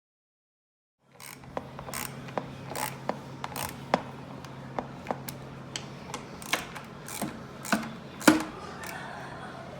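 A 3/8-inch Pittsburgh ratchet clicking in scattered sharp clicks while chair bolts are tightened, over a steady low hum.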